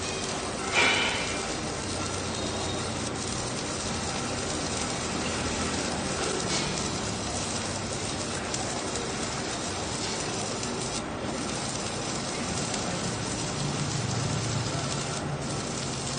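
Welding arc crackling and hissing steadily, with a sharp louder burst about a second in.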